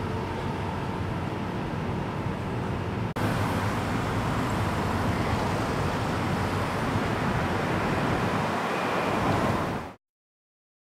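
Steady roar of passing traffic mixed with wind on the microphone. It breaks off for an instant about three seconds in and stops abruptly near the end.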